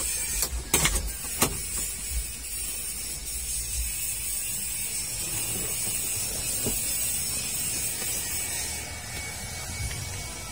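A few sharp clicks from a Mitsubishi L300's handbrake lever as it is worked by hand, a brake that no longer bites and needs its cable adjusted. A steady high hiss with low handling rumble follows.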